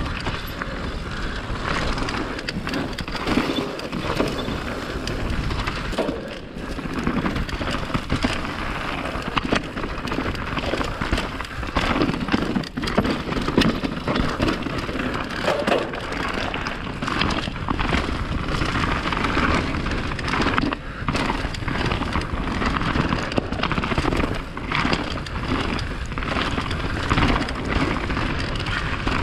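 Mountain bike descending a rocky dirt trail at speed: tyres rolling and crunching over dirt and loose stones, with the bike rattling and knocking over the bumps throughout.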